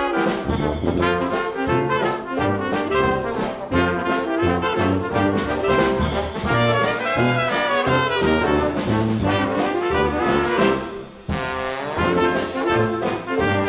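Background music led by brass instruments over a rhythmic bass line, with a brief break about eleven seconds in.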